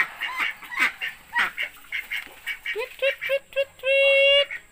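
Pet ducks quacking in a quick cluster of short calls. From about three seconds in, a person's high-pitched "tweet, tweet" feeding call comes in: a run of short notes, then one long held note.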